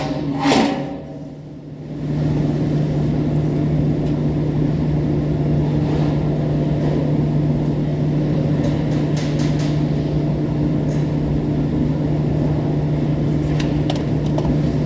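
A steady machine hum with a low drone, faint for the first couple of seconds and then holding at an even level, with a few light clicks over it.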